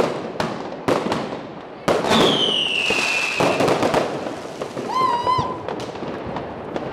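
Fireworks and firecrackers banging repeatedly at irregular intervals. About two seconds in, a whistling firework's whistle falls slowly in pitch for over a second, and around five seconds there is a brief wavering whistle.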